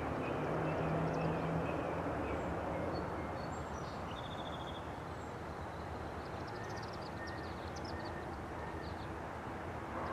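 Outdoor background noise: a steady wash, louder for the first three seconds, with birds chirping faintly from about four seconds in.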